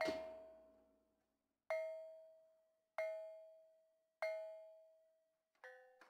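Kulintang gong-chime music: one note struck slowly about every second and a half, each stroke ringing out and fading, then two quicker strikes on lower notes near the end as the pattern picks up again.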